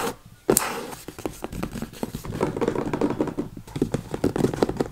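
Fingertips and fingernails tapping rapidly on a cardboard shipping box for ASMR, a dense run of quick clicking taps with a short pause near the start.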